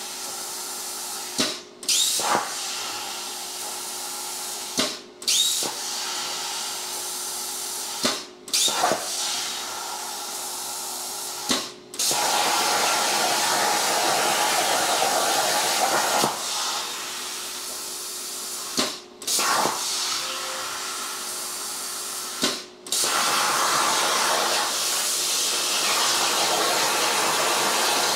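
CNC plasma torch cutting 14-gauge sheet steel: a steady rushing hiss of the arc and its air. It cuts out briefly about six times as the torch shuts off between cuts, and each restart comes in with a sudden loud burst as the arc fires.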